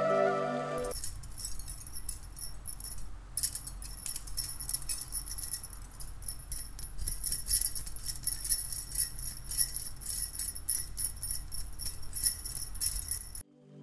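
Bangles on the wrist jingling and clinking in quick, irregular shakes as the hand kneads dough in a small clay bowl. It starts about a second in and stops just before the end.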